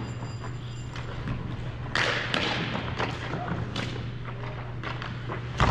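Scattered thumps and knocks during a team game, with a louder burst about two seconds in and a sharp knock near the end, over a steady low hum and faint voices.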